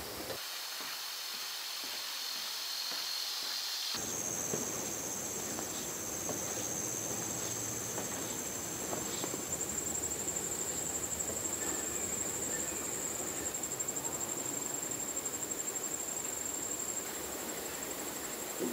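Insects trilling: a steady, very high-pitched buzz that turns into a fast pulsing trill about ten seconds in, over faint outdoor hiss. The sound changes abruptly about four seconds in.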